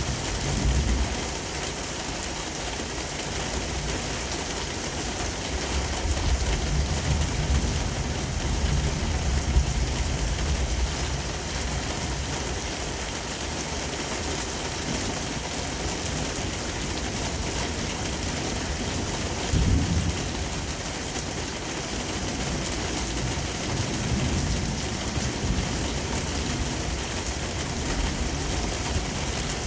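Steady hiss of heavy rain falling in a thunderstorm, with low rolls of thunder rumbling about six to ten seconds in, briefly again around twenty seconds, and faintly a little later.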